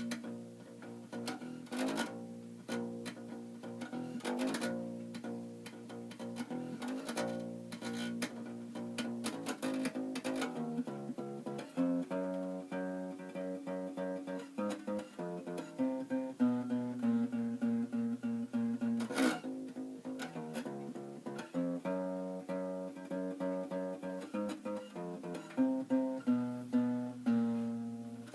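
Fender Kingman acoustic bass guitar, fitted with a pinless ToneBar bridge, being finger-plucked through a melodic tune of single notes and overlapping notes.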